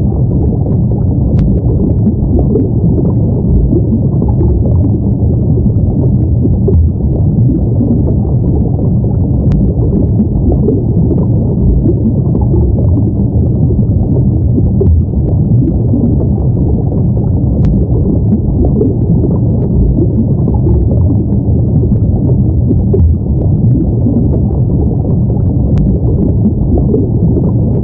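Steady low underwater rumble: a dense wash of deep water noise with no tune or beat.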